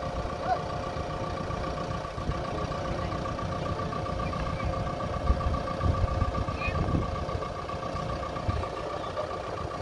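Heavy diesel engine idling steadily, a low rumble with a steady whine above it.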